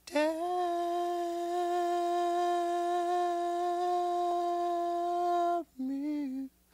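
A voice holding one long sung or hummed note for about five seconds. It is followed by a shorter, lower note with a wavering pitch, opening a song.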